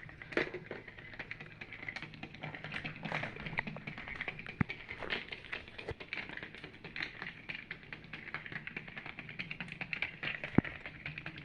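Motorised toy hamster in a plastic ball rolling on the floor: a steady, faint motor hum under a fast, constant clatter of clicks and rattles from the ball, with a few sharper knocks as it bumps into things.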